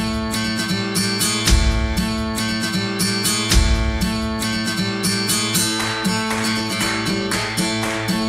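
Background music: a guitar-led track with a steady beat and a moving bass line.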